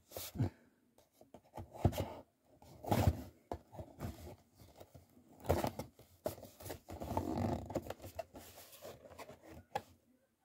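A cardboard toy box is handled and opened by hand: irregular bursts of scraping and rustling packaging, with a longer stretch of it about seven seconds in.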